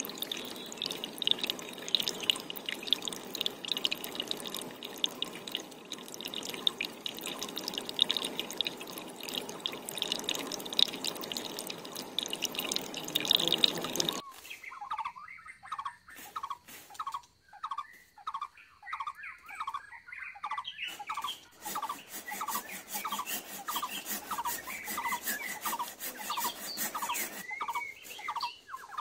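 Water splashing and trickling with small clicks. About halfway through it cuts abruptly to a steady run of short, high squeaks, about two a second, over faint crackling.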